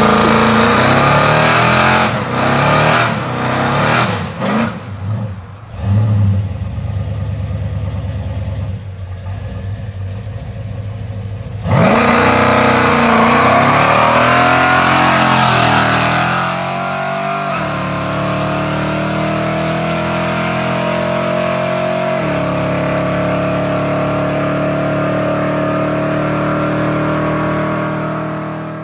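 Big-block V8 of a Chevrolet C10 pickup revving hard through a burnout, its rear tyres spinning on the asphalt. The sound jumps suddenly louder with a rising pitch about twelve seconds in, then settles into a steady engine note whose pitch drops a step later on.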